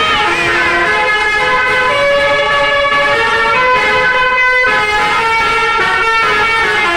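Telolet horn on an Eka bus: a set of horns playing a continuous multi-note tune, several tones sounding together and changing pitch in steps every fraction of a second.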